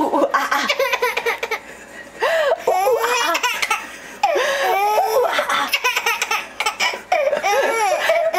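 A five-month-old baby laughing in several bursts, set off by an adult's imitated monkey noises, with a short lull about two seconds in.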